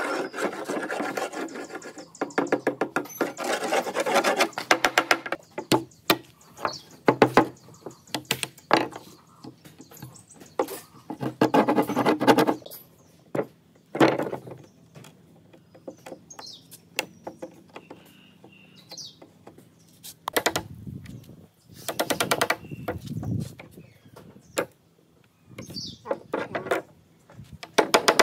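A steel hammer scraping rapidly along a weathered wooden plank, then scattered knocks and taps on the wood as old nails are worked out with pliers. Near the end a hammer strikes a nail punch several times to drive nails through the board.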